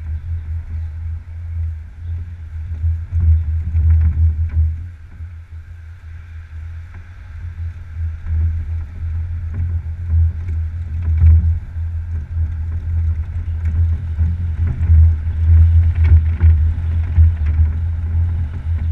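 Wind buffeting the microphone of a camera on a slowly moving open vehicle: a heavy, uneven low rumble that eases off for a couple of seconds about a third of the way through, then picks up again, over a fainter steady hiss.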